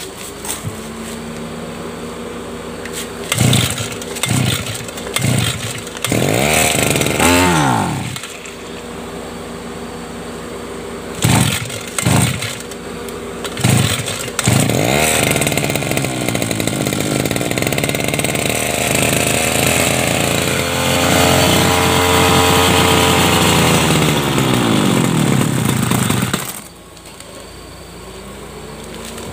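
Freshly started two-stroke brush cutter engine idling, its throttle blipped several times, then held at high revs for about ten seconds before it drops back to idle near the end.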